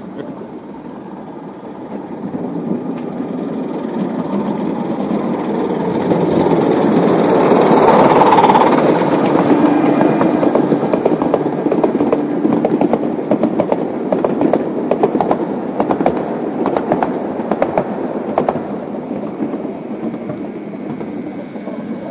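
Gauge 1 model train with a rake of coaches rolling past on garden railway track. It grows louder over several seconds, then runs on with the wheels clicking and clattering over the rail joints and pointwork.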